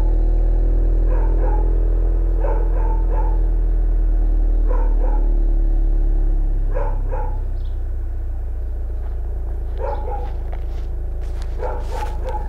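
Volkswagen Golf MK6 GTI's 2.0 TSI turbo four-cylinder idling after a cold start, heard at the stock exhaust tailpipe. About halfway through, the rumble drops and settles quieter as the cold-start fast idle comes down. A dog barks in short bursts of two to four throughout.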